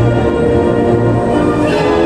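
Orchestral background music with long held notes, swelling briefly near the end.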